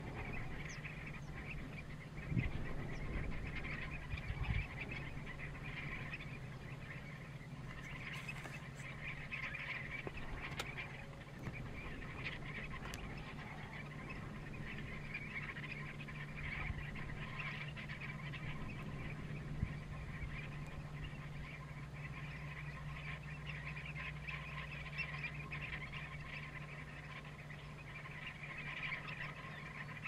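A flock of common redshanks keeps up a continuous chatter of many short, overlapping calls, over a steady low hum.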